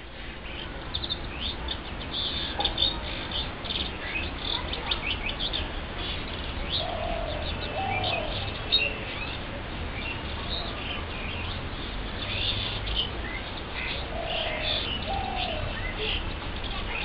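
Songbirds chirping and twittering, many short high chirps throughout, with a lower two-note call heard twice, about seven and fifteen seconds in. A low steady rumble runs underneath.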